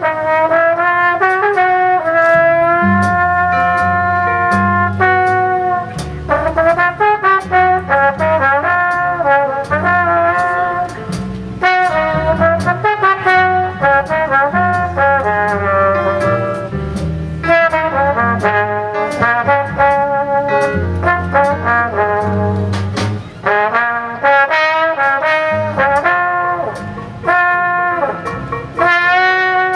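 Solo trombone playing a jazz ballad melody in long held notes over a big-band rhythm section with upright bass, with a falling bend in the melody near the end.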